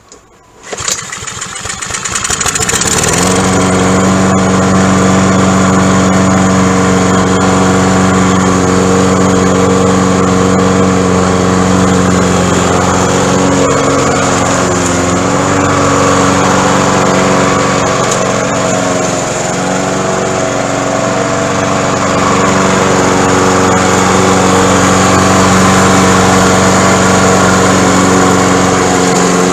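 Honda single-cylinder four-stroke lawn mower engine starting on a fresh carburetor: it catches about a second in, builds over the next couple of seconds, then runs steadily.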